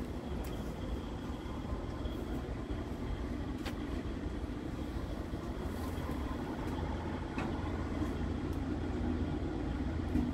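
Scania R truck's diesel engine idling: a steady low rumble, with a few faint clicks over it.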